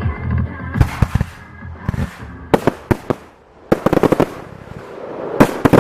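Fireworks going off: sharp bangs, first singly and in small groups, then quick volleys of reports in rapid succession, with a brief lull in the middle.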